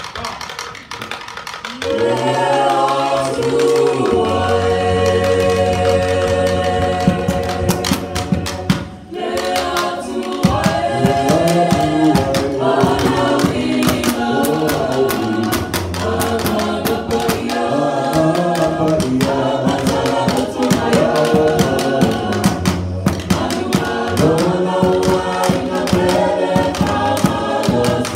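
A small vocal group singing in harmony into microphones, the voices coming in about two seconds in with a short break about nine seconds in.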